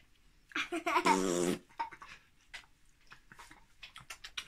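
A burst of playful laughing and vocal noises from a toddler and a man, starting about half a second in and lasting about a second, followed by faint rustling and small clicks.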